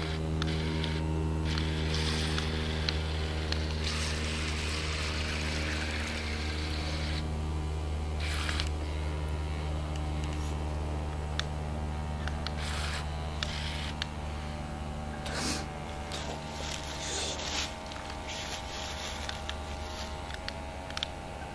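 Small electric motor of a ProBoat BlackJack 9 RC catamaran running steadily as it tows another boat, a low hum with water hiss above it that weakens near the end. The towed boat's own motor is burnt out and silent.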